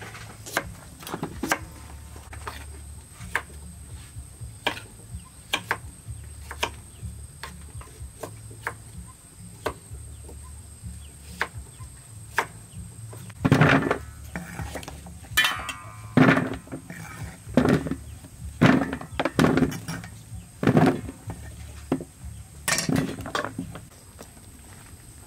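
Cleaver chopping carrots and white radish on a thick wooden chopping block: a long run of sharp knocks, about one or two a second, getting louder and heavier in the second half.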